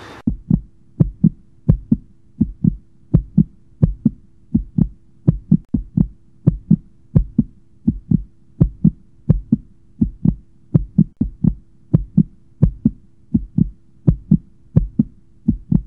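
Heartbeat sound effect: steady paired 'lub-dub' thumps, a little faster than one beat a second, over a low steady drone.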